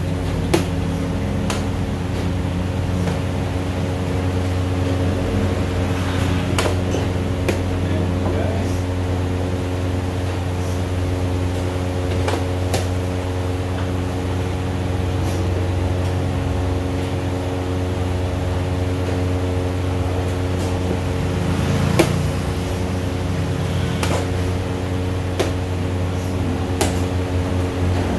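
Chess pieces set down on a board and a chess clock being pressed: a scatter of sharp, spaced-out clicks, one louder about three-quarters of the way through, over a steady low mechanical hum.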